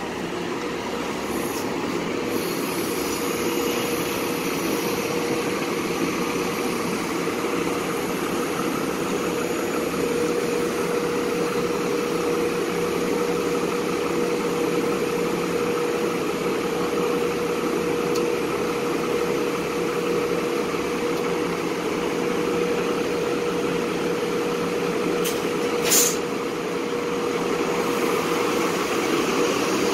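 City transit buses running and idling in a bus terminal: a steady engine drone with a steady whine under it. A brief sharp hiss about 26 seconds in.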